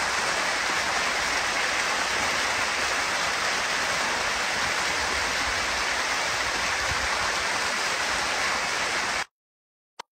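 Rushing floodwater in a rain-swollen arroyo, churning around a man lying in the current and washing over the phone: a steady, loud rush of water. It cuts off abruptly about nine seconds in, and a couple of short clicks follow.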